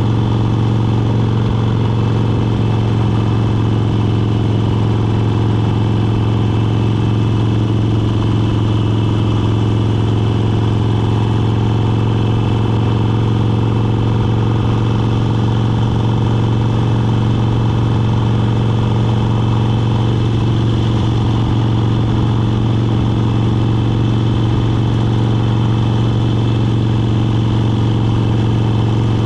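Motorcycle engine running steadily at cruising speed, a constant low drone that holds one pitch throughout.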